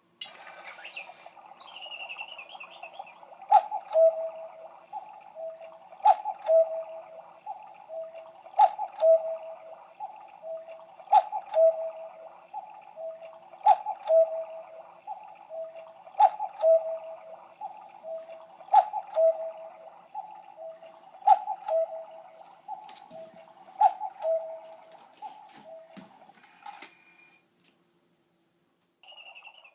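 Handmade cuckoo clock striking ten o'clock: a sharp click about every two and a half seconds, each followed by a falling two-note call, with lighter repeated notes in between. It stops about 27 seconds in.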